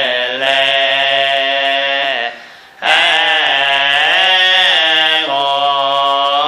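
A low male voice chanting Chinese Buddhist fanbei liturgy, holding long drawn-out notes that bend slowly in pitch. The voice breaks off for a breath about two and a half seconds in, then resumes in wavering melismatic phrases.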